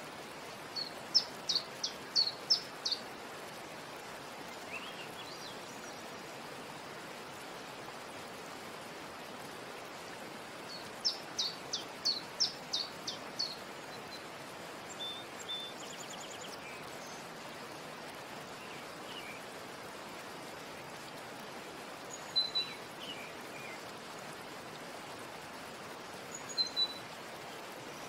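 Birds chirping over a steady hiss: a quick run of sharp, high chirps near the start and another about eleven seconds in, with scattered single calls later.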